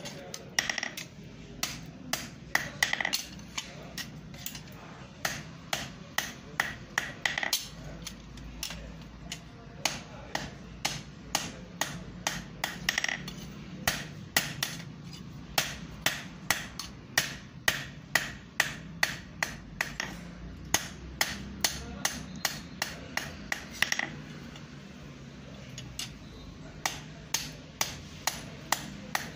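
Blacksmith's hand hammer striking red-hot iron on an anvil in a steady run of blows, about two to three a second, some with a ringing note. There is a pause of about two seconds near the end.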